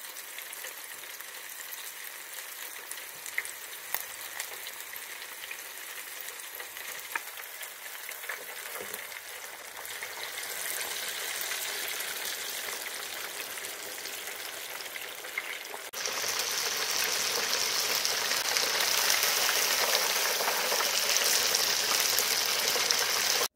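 Flour-coated chicken drumsticks deep-frying in hot oil in an electric deep fryer: a steady sizzle of bubbling oil with scattered pops, turning suddenly louder about two-thirds of the way through.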